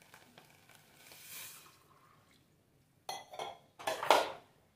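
Water poured from a steel tumbler into a hot steel pot of dry-roasted black chickpeas, with a soft hiss in the first two seconds. Two short, loud bursts of sound follow, about three and four seconds in, the second the loudest.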